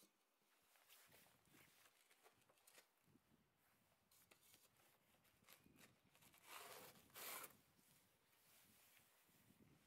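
Near silence with faint scuffs and rustles, and two short scraping sounds about two-thirds of the way through.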